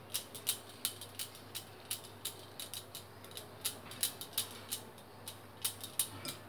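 Stainless steel wire whisk beating gram-flour batter in a ceramic bowl, the wires clicking against the bowl's side about three times a second in an uneven rhythm.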